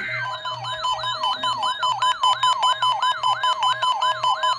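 Test of the NOAA Weather Radio warning alarm: the steady 1050 Hz alert tone, with weather alert radios sounding their alarms over it. One alarm is a siren warbling up and down about three times a second, and another is a repeating beep.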